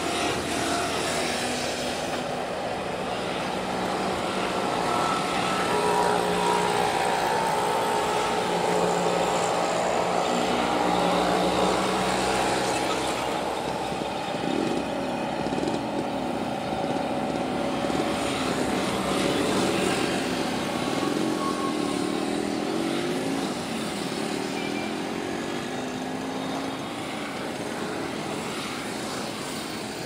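A motor engine running steadily over background noise, with several tones whose pitch slides up and down in the middle stretch.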